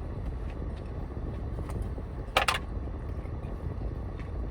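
Steady low car rumble heard inside a car, with one brief, sharp, high sound about two and a half seconds in.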